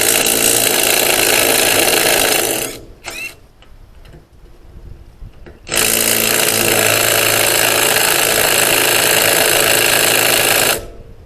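Craftsman V20 CMCF810 brushless cordless impact driver hammering on a trailer lug nut that has been on for years. There is a burst of nearly three seconds, a brief blip, then a second burst of about five seconds, each cut off sharply at trigger release.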